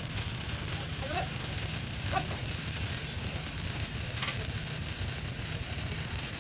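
TIG welding arc giving a steady hiss and crackle over a low buzz.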